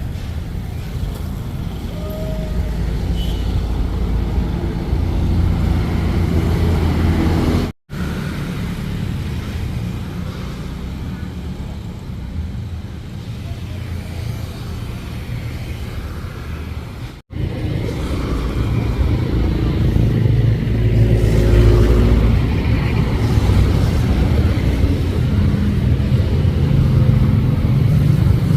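Road traffic: a steady rumble of passing cars, broken twice by abrupt cuts to silence about 8 and 17 seconds in.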